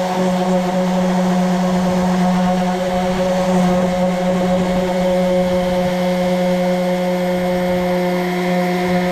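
Electric power sander running steadily against wood, a constant motor hum with a sanding hiss over it.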